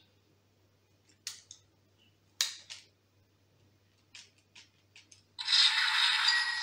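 A handful of light plastic clicks as a Kamen Rider Saber Wonder Ride book toy is handled and its button pressed. About five seconds in, the toy's small built-in speaker starts playing its electronic sound effect, loud and tinny.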